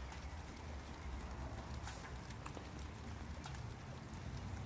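Steady rain falling, with scattered sharp drips ticking on nearby surfaces over a low rumble.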